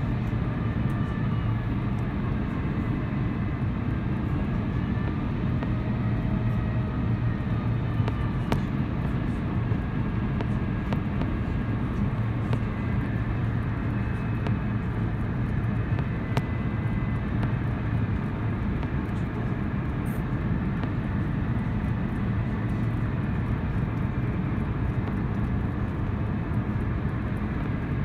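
Steady cabin noise of an Airbus A350-900 in flight, heard from a window seat: an even rumble of its Rolls-Royce Trent XWB engines and airflow, with a low hum.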